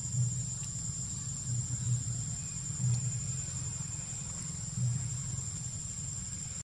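Steady high-pitched drone of an insect chorus, unbroken throughout, with soft low rumbles coming and going underneath.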